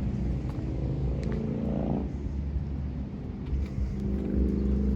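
Motor vehicle engine, its pitch rising as it accelerates up to about two seconds in, then swelling again near the end, over a steady low rumble.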